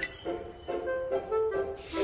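Cartoon background music: a short melody of separate notes, following a quick rising run. A hiss comes in near the end.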